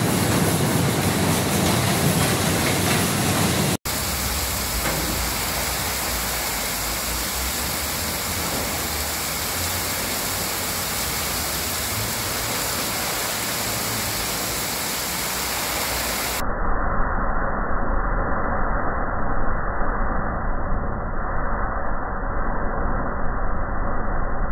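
Steady rushing hiss of FireDos fire-fighting monitors spraying water, a strong jet at first and, after a cut about four seconds in, a wide fog spray as the nozzle opening is changed. From about two-thirds of the way through the sound turns duller and more muffled, with an uneven low rumble.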